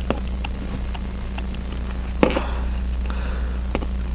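Small light clicks and taps of watchmaker's hand tools handling a tiny screw on a pocket watch movement, with one sharper click about two seconds in, over a steady low electrical hum.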